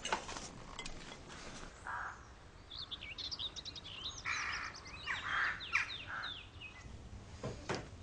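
Small songbirds chirping and singing in a quick run of high notes from about three seconds in to about six seconds.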